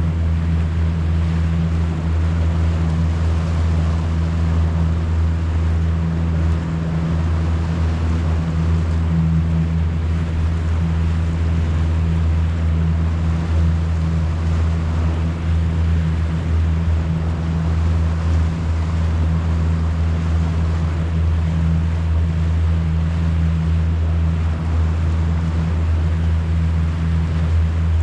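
Boat motor running at a steady speed, a constant low drone with no change in pitch, over a wash of water and wind noise.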